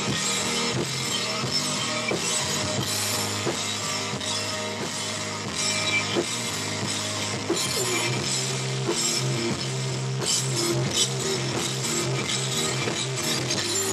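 A live rock band playing an instrumental passage: electric guitar over a drum kit with cymbals and sustained low bass notes, at a steady loud level.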